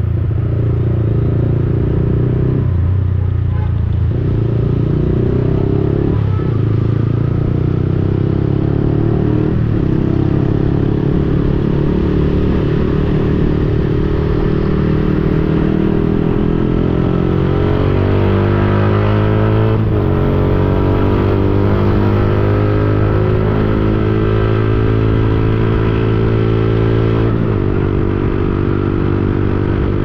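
Yamaha XSR155's single-cylinder engine through an aftermarket Akrapovic-replica exhaust, riding through the gears. The pitch breaks and steps several times in the first ten seconds as gears change, then climbs steadily for several seconds, with more shifts about two thirds through and near the end. Wind noise rumbles on the camera's built-in microphone underneath.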